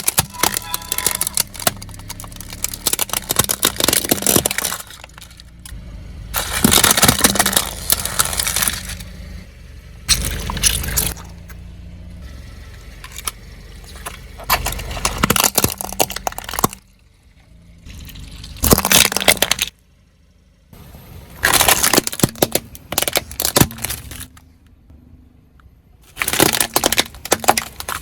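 Car tyre rolling over and crushing crunchy objects: a run of separate crackling, breaking bursts, each lasting a second or two, over the low rumble of the car.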